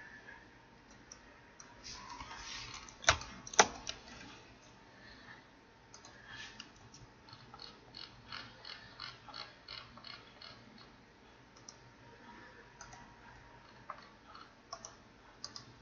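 Computer keyboard and mouse clicking: scattered light clicks, a run of quick, evenly spaced clicks from about six to eleven seconds in, and two sharper, louder clicks about three seconds in.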